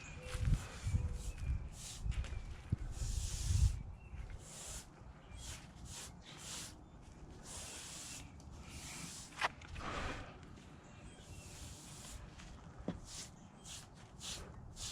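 A concrete broom dragged in repeated strokes across freshly poured concrete steps, each stroke a short scratchy hiss, with a few low thumps in the first few seconds.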